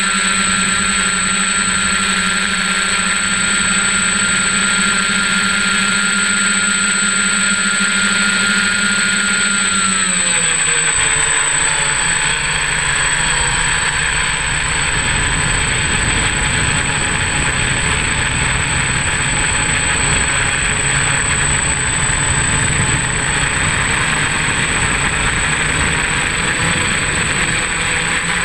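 Six brushless motors and propellers of an F550 hexacopter buzzing in flight, heard from a camera on its frame, with a constant high whine on top. About ten seconds in the pitch glides down as the throttle comes back and the craft descends, and the sound turns rougher and noisier.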